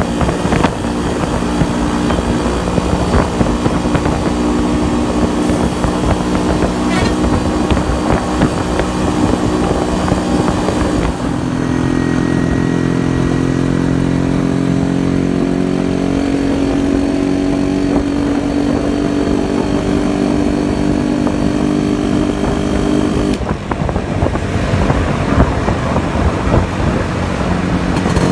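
Yezdi motorcycle engine running at a steady cruise, with wind and road noise over the microphone. The engine note shifts in pitch about eleven seconds in and again a few seconds before the end.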